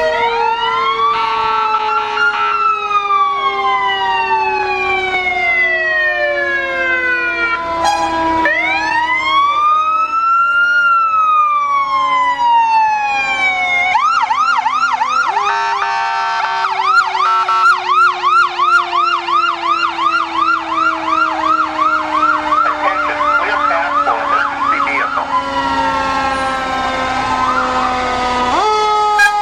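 Several emergency-vehicle sirens sounding together. Slow wails rise and fall over a few seconds each, and for about ten seconds in the middle a fast yelp joins them, warbling about two to three times a second. Underneath runs a long tone that falls slowly in pitch.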